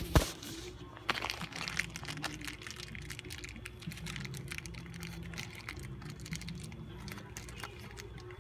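Handling noise from the camera being covered by or rubbed against fabric: a sharp knock just after the start, then steady rustling and scuffing.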